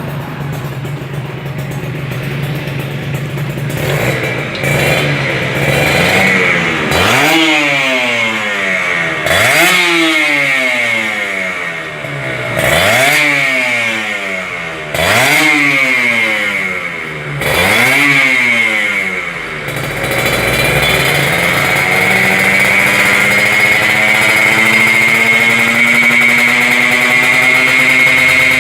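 Two-stroke Kawasaki Ninja 150 single-cylinder engine running through an aftermarket exhaust. It idles, is revved in five quick blips that each rise and fall in pitch, then from about two-thirds of the way in is held at high revs with the pitch creeping upward.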